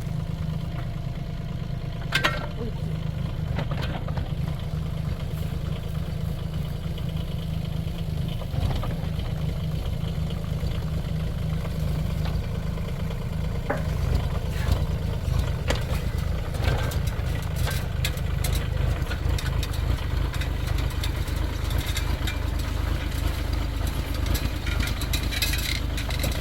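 A mini excavator's engine running steadily with a low, even hum, with a few sharp knocks now and then, the first about two seconds in.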